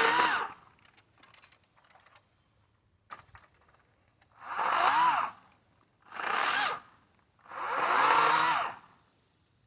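Kobalt 40V Max cordless electric chainsaw run in short trigger bursts: one ending about half a second in, then three more starting about four and a half, six and seven and a half seconds in. Each burst's motor whine rises as the chain spins up and falls as it winds down.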